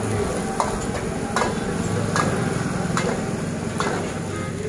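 Steel ladle scraping and clanging against a large iron wok as fried rice is stirred and tossed over a gas burner, with a sharp clang a little more often than once a second and a frying sizzle underneath.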